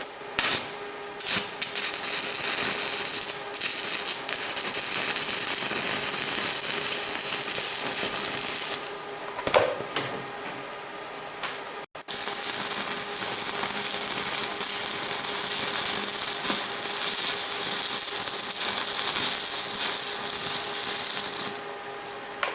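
Arc welding: two long runs of steady crackling, sputtering hiss from the welding arc as beads are laid on a steel door latch, the second starting after a short break about twelve seconds in.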